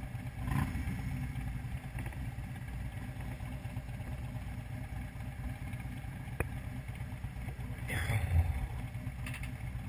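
Motorcycle engines idling, a steady low rumble, with a sharp click about six seconds in and a brief louder surge near the end.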